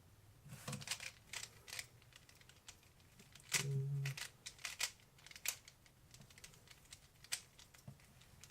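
3x3 Rubik's cube being turned fast in a speedsolve: irregular clicking and clacking of the cube's layers snapping round, with a short low hum about halfway through.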